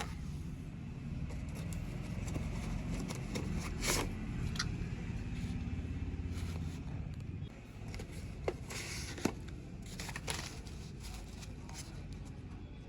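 Slate pencils being handled, with scattered sharp clicks as the sticks knock together and some rustling of the packaging. A steady low rumble sits underneath throughout.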